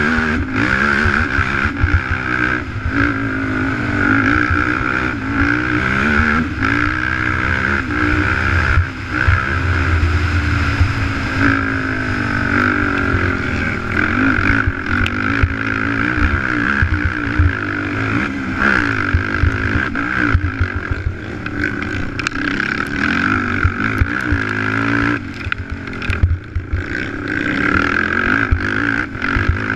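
A race quad's (ATV's) engine running hard, its pitch rising and falling with the throttle. Scattered knocks and rattles come through as it crosses rough dirt.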